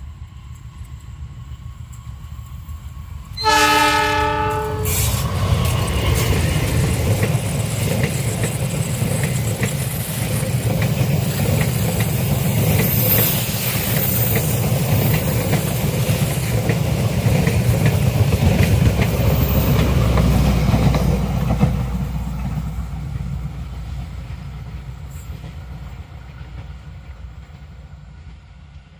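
Diesel-hauled passenger train approaching and passing. The locomotive sounds its horn about three and a half seconds in, then its engine rumbles and the wheels clatter past, with brief high squeals from the wheels on the sharp curve, before the sound fades away.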